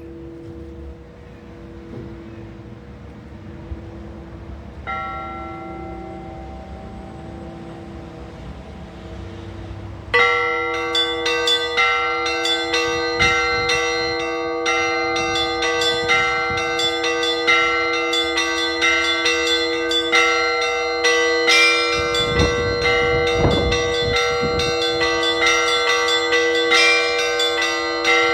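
Orthodox church bells ringing: one bell rings steadily, another joins about five seconds in, then about ten seconds in the full set of bells breaks in, louder, with a fast, many-toned peal over the larger bells.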